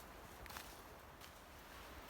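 Faint footsteps on a rainforest path, a few soft steps over a quiet background hiss.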